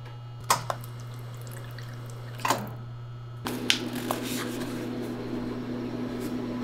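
Water from a drinking-water dispenser running into a paper cup from about three and a half seconds in, after a few sharp clicks from the cup and dispenser being handled, over a steady low hum.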